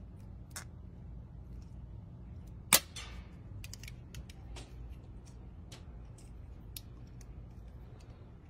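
Multitool pliers cutting a blue plastic tube, giving one loud sharp snap about three seconds in, with fainter small clicks of the metal tool around it.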